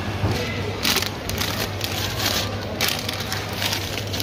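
Thin plastic carrier bag rustling and crinkling in bursts as groceries are packed into it, over a steady low hum.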